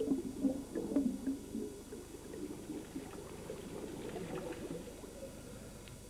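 Low, watery gurgling and squelching, strongest in the first second or so.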